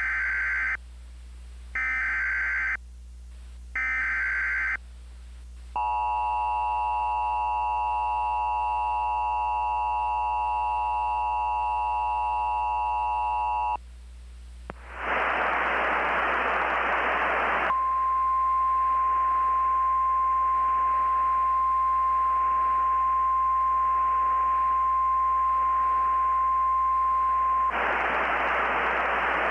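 Emergency Alert System tones: three one-second screeching SAME header data bursts, then the two-tone EAS attention signal held for about eight seconds. Then comes radio static with the NOAA Weather Radio 1050 Hz warning alarm tone held steady for about ten seconds. The static runs on after the tone cuts off.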